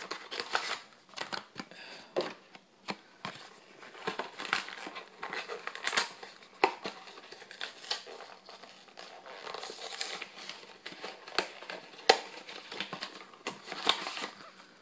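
Yu-Gi-Oh booster-pack wrappers crinkling and rustling in irregular, quick crackles as packs are opened.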